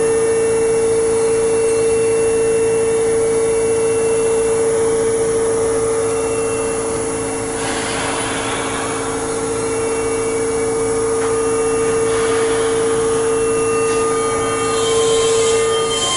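Keihan electric train standing at the platform just after its doors close: a steady tone and hiss of machinery. Near the end the tone stops and higher whining tones start up as the train begins to move off.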